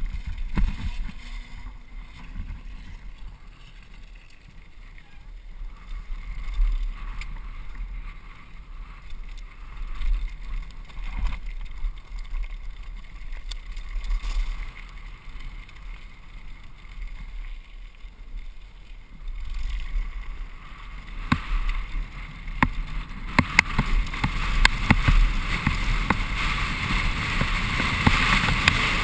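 Mountain bike descending a dirt and gravel downhill trail, heard from a camera on the rider: wind rumbling on the microphone with tyres crunching over the ground. From about two-thirds in it gets louder, with a dense run of clicks and rattles as the bike goes over rougher ground.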